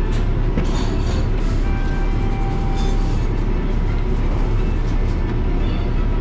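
Steady low machine rumble, with faint music over it and a few small clicks of metal parts being handled.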